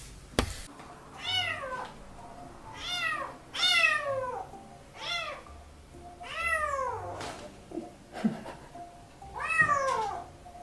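A kitten meowing repeatedly, about six high-pitched meows, each falling in pitch. A sharp tap sounds just before the first meow.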